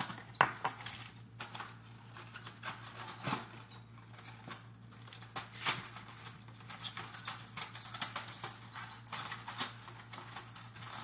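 Irregular light clicks and taps of things being handled in a kitchen, the sharpest about half a second in and again near the middle, over a steady low hum.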